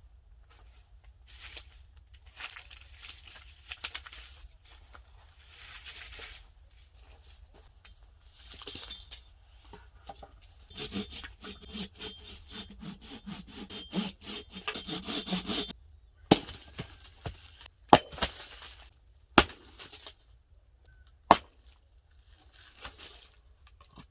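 Firewood being split by hand: scraping and rustling as the wood is handled, with a rhythmic rasping stretch, then four sharp, separate axe strikes into the wood over the last several seconds.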